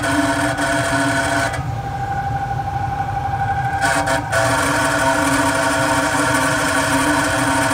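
Carrier Weather Maker furnace blower motor running with a loud grinding noise over a steady hum, the sign of a failing blower motor that needs replacing. About a second and a half in, the harsh grinding drops away for about two seconds, leaving a steady whine, then comes back.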